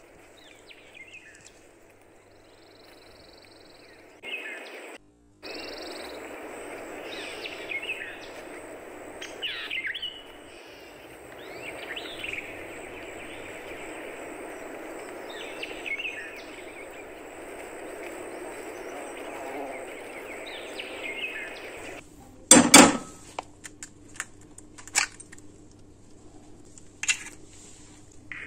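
Short bird chirps every couple of seconds over a steady background noise that starts and stops abruptly. Near the end comes one loud sharp knock and a few lighter clicks, eggs being cracked on the rim of a glass mixing bowl.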